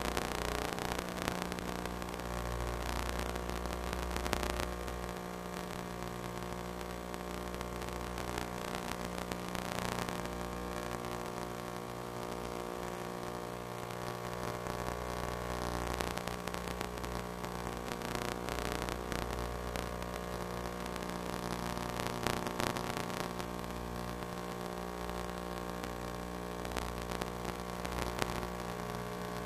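Steady static hiss with a buzzing mains-like hum and a few crackles: the noisy audio channel of an analog FPV video link.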